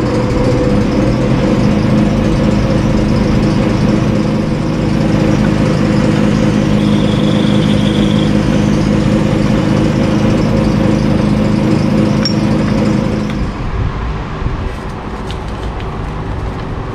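Atlas lathe running at a steady speed while a twist drill in the tailstock is fed into a spinning block of UHMW polyethylene, drilling a hole just over an inch deep. The lathe is switched off about three-quarters of the way through and its hum dies away.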